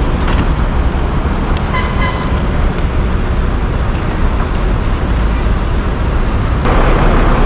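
Bus engine idling with a steady low rumble, a short high two-note tone about two seconds in, and a rise of hiss near the end.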